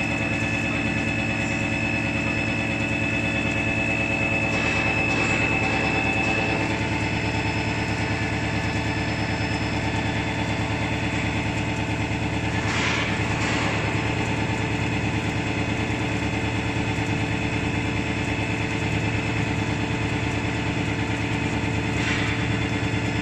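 Edge milling machine running with its milling head tilted for lower-edge beveling: a steady hum with several constant tones from the head's motor and gearing, broken by brief hissing swells about 5, 13 and 22 seconds in.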